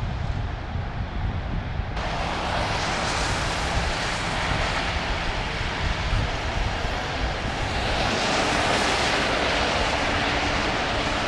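Traffic on a wet freeway: tyres hissing over the soaked pavement, swelling as vehicles pass about a second into the second shot and again near the end, over a low steady rumble.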